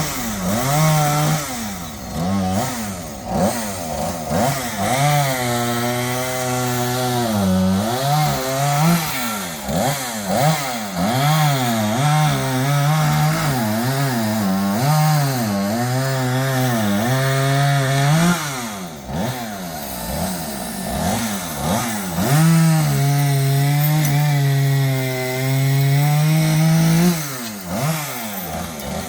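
Two-stroke chainsaw revved up and down repeatedly, held at full throttle for several seconds at a time as it cuts. It drops back about two-thirds of the way in, revs up again, and eases off near the end.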